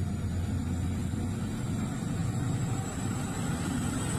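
Large mining haul truck's diesel engine running steadily as the truck drives, a deep low rumble with a faint high whine above it.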